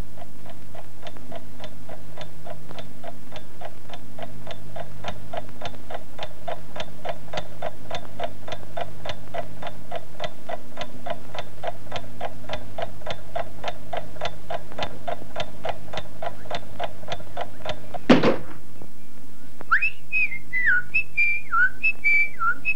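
Clock ticking steadily, about four even ticks a second, over a low hum. About 18 seconds in, a sudden loud swish cuts the ticking off, and short gliding whistled notes follow.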